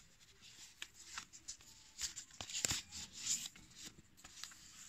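Paper wrapping of a screen protector being handled, rustling faintly with scattered soft clicks and taps, one sharper click about midway.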